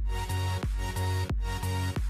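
Electronic background music with heavy bass and held notes, on a steady beat about every two-thirds of a second.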